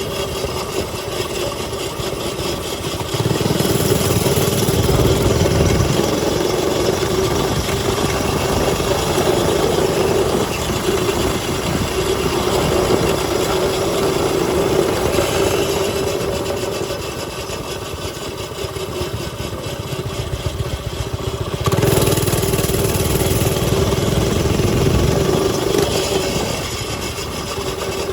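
Small mini bike engine running steadily. It gets louder twice, about three seconds in and again about twenty-two seconds in, as a bike revs up or rides close.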